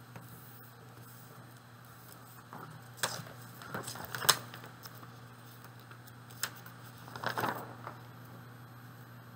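A felt eraser rubbing marker off a sheet, with papers being shifted and tapped, in two short spells about three seconds in and about seven seconds in, over a low steady hum.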